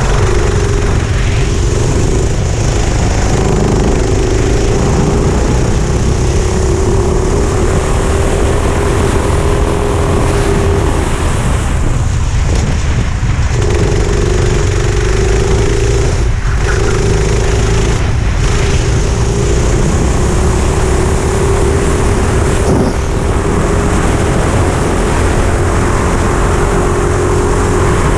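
Four-stroke kart engine running hard on a lap, its note rising and falling with the throttle. The note cuts out for about a second and a half around twelve seconds in and dips twice briefly a few seconds later, over heavy low wind rumble on the onboard microphone.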